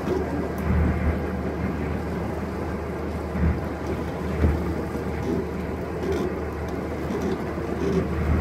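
Steady low rumbling noise with no clear pitch, lifting slightly now and then.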